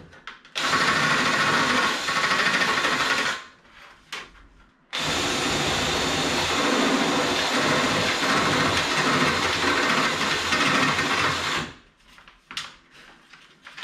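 Ryobi cordless drill with a step drill bit enlarging holes in an aluminum bulkhead flange: two steady runs, a short one of about three seconds and a longer one of about seven, with a pause between. A few light clicks follow near the end.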